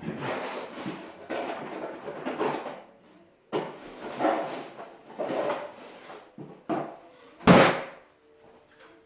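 A run of rough scraping and sliding sounds, as of parts being dragged or shifted by hand, then one loud knock about seven and a half seconds in.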